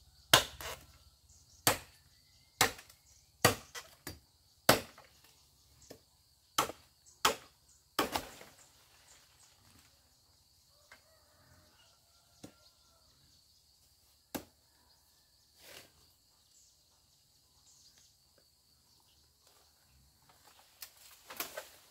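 Blade chopping into bamboo culms at the base of a clump: a run of sharp, separate blows, about nine in the first eight seconds, then a few spaced strikes and a quieter stretch.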